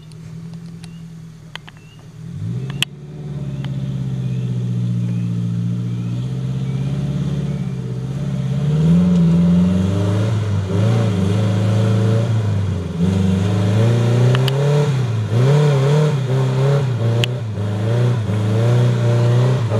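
Suzuki Jimny SJ410's 1.0-litre four-cylinder engine picking up about two seconds in, running steadily for a few seconds, then revving up and down over and over, with a few sharp clicks and knocks.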